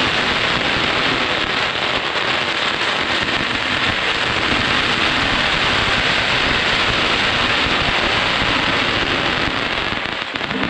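Long string of firecrackers going off in a continuous dense crackle.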